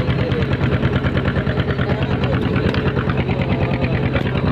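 Fishing boat's inboard engine running steadily with a fast, even chugging beat.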